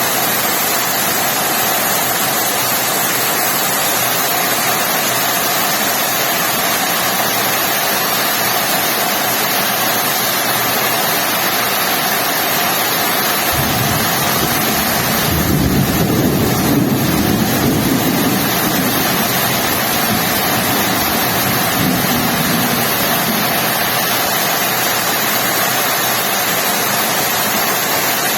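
Heavy rain falling steadily, with a low rumble rising out of it about halfway through and fading over several seconds.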